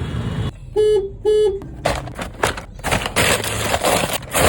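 Vehicle horn giving two short toots about a second in, over the noise of street traffic.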